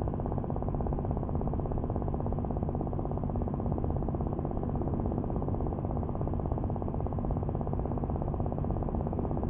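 A steady low engine drone, even throughout.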